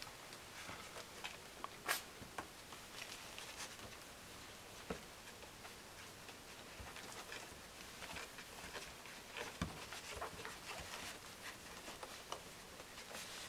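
Faint, scattered clicking and pattering of puppies' paws and claws on a wooden floor as they scramble over one another, with one sharper click about two seconds in.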